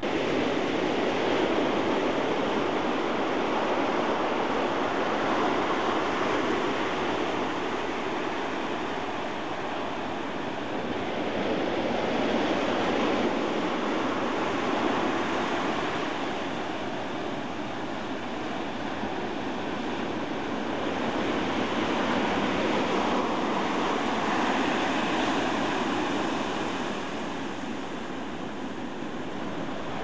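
Pacific Ocean surf breaking and washing up a sandy beach: a steady rushing that swells and eases every ten seconds or so.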